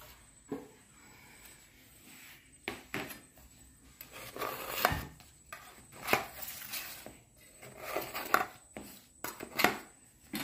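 A cake tin knocking and clattering as a baked sponge cake is turned out of it: a string of scattered knocks and rattles at uneven intervals, with some rubbing between them.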